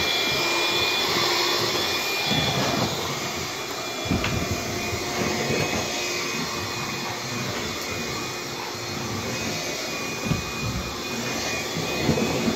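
Bissell PowerGlide cordless stick vacuum running on low power with the brush roll off, a steady motor hum and whine as it is pushed over hard floor, with a few low knocks from the head along the way.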